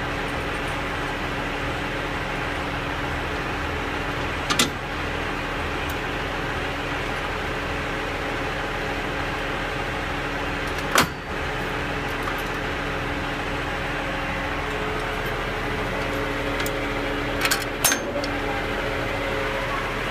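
Sharp metal clanks from heavy-truck air-brake shoes being fitted onto the axle's brake assembly: a few knocks several seconds apart, the last two close together near the end, over a steady mechanical drone.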